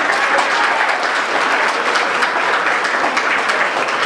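Applause from a small audience in a meeting room: steady clapping by many hands that eases off near the end.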